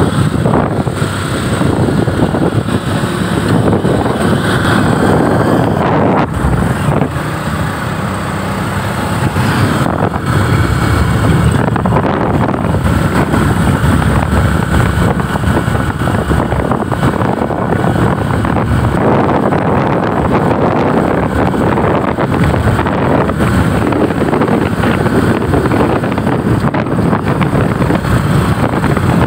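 Motorcycle engine of a Philippine tricycle (motorcycle with sidecar) running steadily while riding along, with wind buffeting the microphone.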